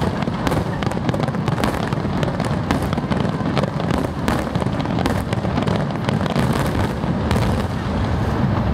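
A fireworks barrage: many aerial shells bursting in quick succession, a dense run of overlapping bangs with no let-up.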